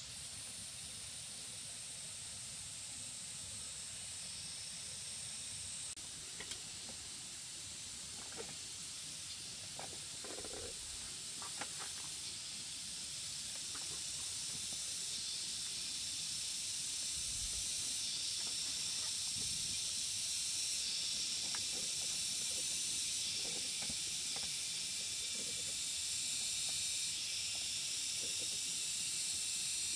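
A steady, high hiss that grows louder, with a few faint knocks along the way.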